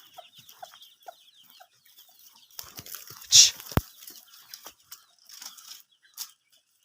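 Domestic hen clucking in short scattered calls, with her chicks peeping high and thin during the first second. About three and a half seconds in there is a brief loud rustling noise, then a sharp click.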